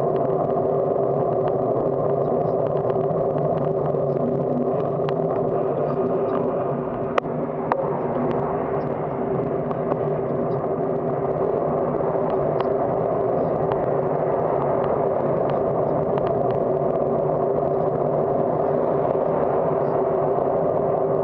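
Steady riding noise picked up by a camera mounted on a bicycle's handlebars as it rolls along pavement: a constant hum of tyre and wind noise, with scattered small clicks and knocks and two sharper clicks about seven seconds in.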